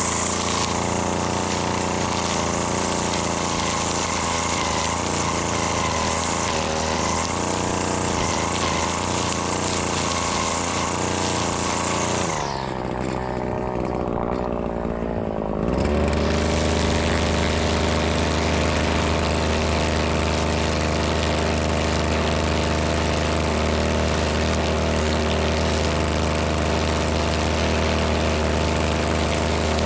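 Two-stroke string trimmer running hard while cutting, with a high hiss over the engine note. About twelve seconds in the throttle eases off for a few seconds, then the engine comes back up and runs steady.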